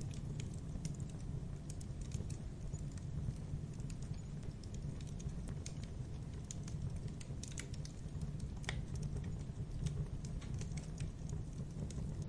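Wood logs burning in a fireplace: a steady low rumble of the fire with irregular small crackles and snaps throughout, and one louder pop near the three-quarter mark.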